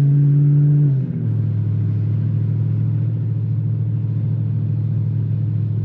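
BMW E92 M3's V8 engine pulling at steady revs. About a second in, the pitch drops quickly as it shifts up a gear, then it runs on steadily at lower revs.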